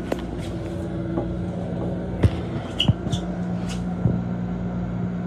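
Steady low hum of a Long Island Rail Road M7 electric railcar, heard from inside its restroom, with scattered knocks and clicks. The loudest knock comes a little after two seconds in.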